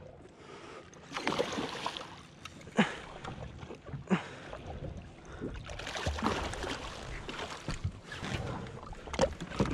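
Water splashing and sloshing around a hooked kingfish at the surface beside a jet ski, with a few short knocks.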